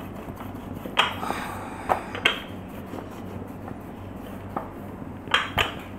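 Wooden rolling pin rolling dough out on a hard counter, with a few short knocks of the pin against the surface: about a second in, twice around two seconds, and twice near the end.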